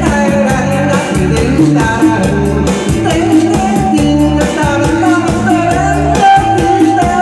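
Loud music with a steady beat, pitched instrument lines over a bass line.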